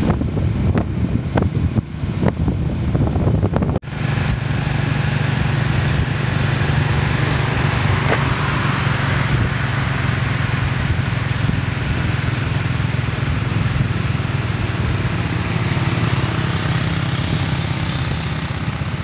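Wind buffeting the microphone on a moving motorcycle for the first few seconds. Then, after a sudden cut, the motorcycle's engine runs steadily under way, with road and wind noise.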